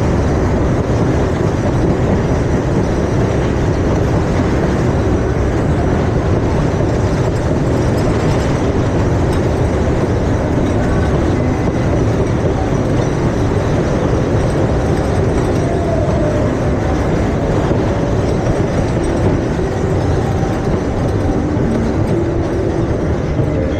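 Steady, loud rumble and rattle of a ride vehicle running on its track, heard from on board.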